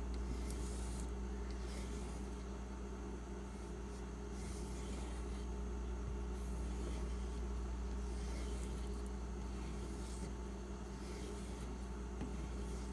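Knife edge being stropped on a leather strop loaded with metal polish: soft rubbing swipes of the blade across the leather, coming at uneven intervals, over a steady low hum.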